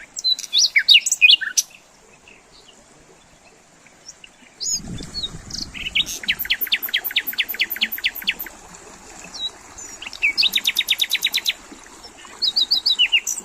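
Wild songbirds singing and calling, with high chirps throughout and two rapid trills of repeated notes in the middle. A brief low rumble sounds about five seconds in.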